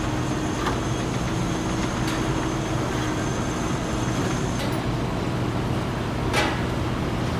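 Steady din of metalworking machinery in a factory, with a high whine that stops a little after halfway and a low hum underneath. A few sharp knocks cut through, the loudest about six seconds in.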